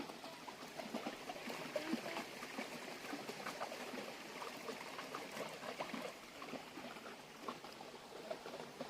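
Small stream trickling and gurgling over rocks, a steady flow dotted with many short bubbling notes.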